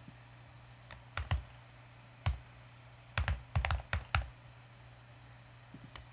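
Typing on a computer keyboard: a few scattered keystrokes, then a quick run of keys in the middle as a word is typed.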